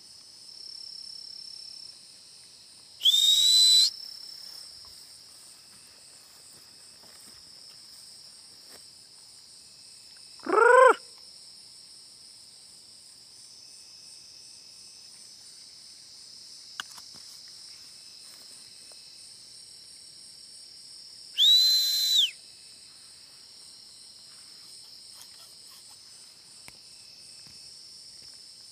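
Crickets and other night insects trilling steadily, broken by loud high whistles: one held just under a second about three seconds in, and another held, then falling away, about twenty-one seconds in. About ten seconds in comes a short, loud rising cry.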